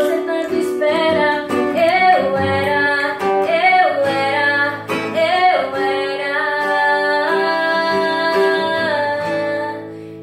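A woman singing to her own strummed acoustic guitar, with a long held note in the second half that fades near the end.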